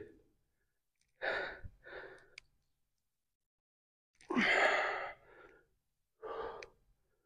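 A man breathing hard from exertion during dumbbell lunges: two short exhales, then a long, louder sigh-like exhale about four seconds in, and one more short exhale near the end.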